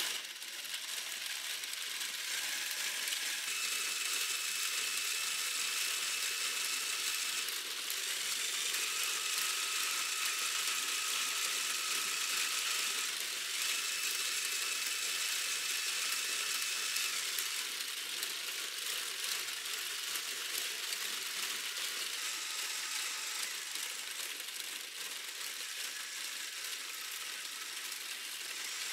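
Lego Technic plastic mechanism running: the pump car and moving infinite track clatter steadily like a ratchet, starting up at the very beginning. A thin whine comes and goes several times over the top.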